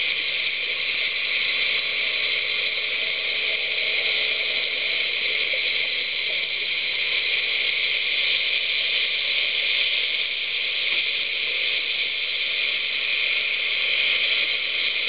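Steady, unbroken hiss picked up underwater, even in level throughout.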